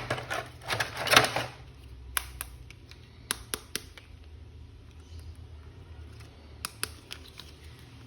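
Plastic toy packaging crinkling and rustling for about the first second and a half, then scattered sharp clicks and taps of hard plastic being handled while an action figure is unboxed.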